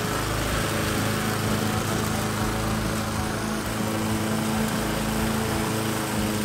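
Pope petrol push lawn mower running steadily while it is pushed through long grass.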